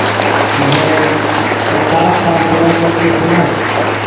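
A crowd applauding steadily, with music and a steady low hum underneath.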